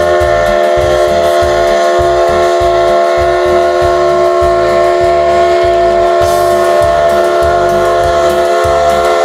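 A train whistle blown in one long, steady blast, a chord of several tones held without a break. A rhythmic low pulsing runs underneath, and a hiss joins about six seconds in.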